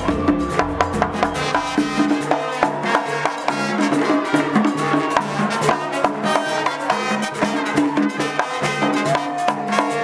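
Live Puerto Rican plena from a parranda: panderetas (hand frame drums) beat a brisk, steady rhythm, with a tune over the drums.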